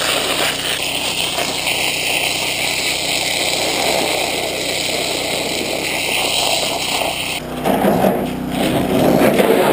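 Fire hose nozzle spraying a full-blast jet of water from a pump, a steady hiss of spray splashing onto dirt. About seven and a half seconds in the sound suddenly turns lower and heavier as the jet hits the truck.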